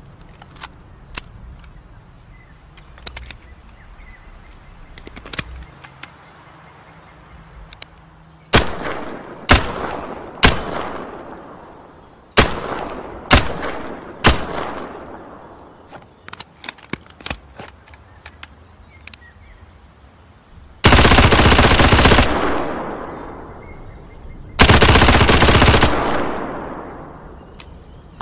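MP7 submachine gun firing: a few light clicks, then six single shots roughly a second apart, each trailing off in an echo, then two full-auto bursts of about a second and a half each, the loudest part.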